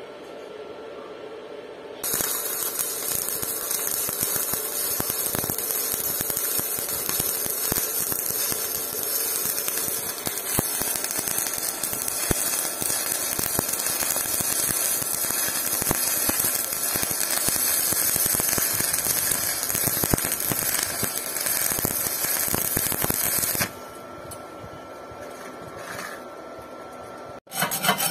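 Stick (shielded metal arc) welding arc on steel, crackling steadily for about twenty seconds as the coated electrode burns down: it strikes about two seconds in and breaks off a few seconds before the end. Right at the end come a few sharp metallic taps of a chipping tool on the fresh bead.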